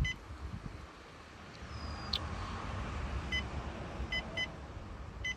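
Humminbird Helix 7 G4 fish finder keypad beeping as its buttons are pressed: short high beeps, one at the start and four in the last two seconds, over a low steady background rumble. About two seconds in there is a brief sliding whistle ending in a click.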